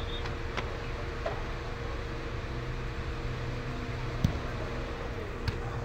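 Steady hum and noise of an indoor sports hall, with a sharp thump about four seconds in and a fainter knock near the end.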